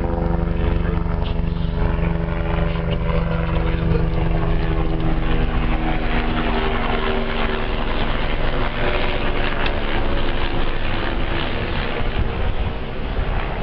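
Helicopter flying over: a steady engine hum that fades about halfway through while a broad rushing rotor noise swells.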